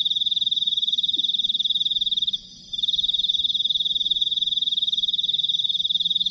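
A night animal calling with a continuous, rapid, high-pitched trill that breaks off briefly about two and a half seconds in.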